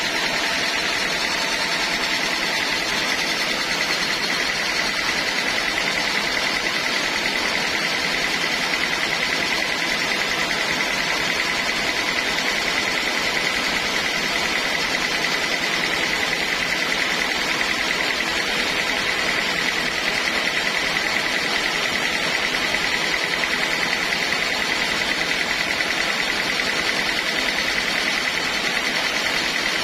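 Sawmill machinery running steadily, a constant high whine over a noisy mechanical din.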